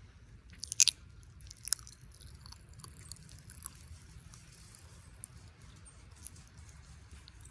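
Sour Pop Rocks candy crackling and popping in the mouth while being chewed. Two loud sharp crackles come about one and two seconds in, followed by small scattered pops.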